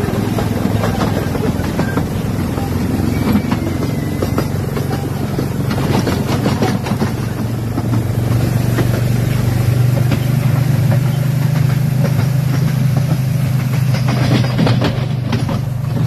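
A small narrow-gauge tourist train running, heard from inside its open carriage: a steady low drone that grows stronger about halfway through, with constant rattling and clacks from the carriage and wheels on the rails.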